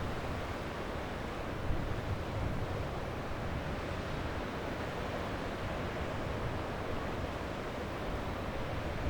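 Sea waves breaking and washing up a beach, a steady rushing surf with a deep low rumble, with no single wave standing out.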